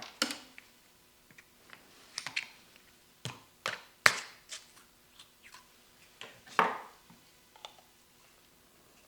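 Irregular clicks, knocks and short scrapes of hand tools and metal parts being handled at a workbench. About a dozen separate strikes come at uneven intervals, with the loudest near the start, around the middle and past two-thirds of the way through.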